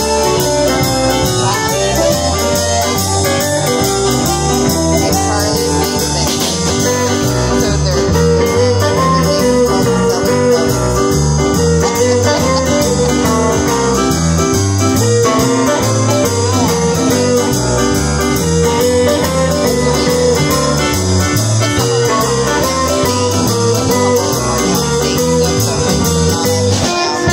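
Live blues band playing a shuffle: electric guitar, bass, drum kit and keyboard, with no words sung.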